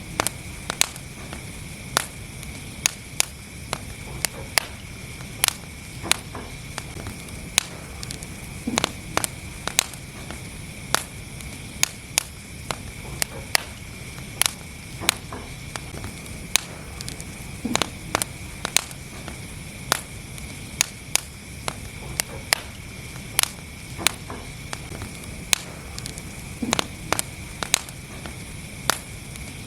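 Wood fire burning in a fireplace, crackling with sharp irregular pops several times a second over a steady low rumble and hiss.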